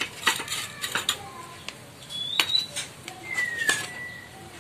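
Metal gas-stove burner parts clinking and knocking as the burner cap and burner tube are lifted out: a few sharp clicks scattered through. Faint short whistled bird calls in the background.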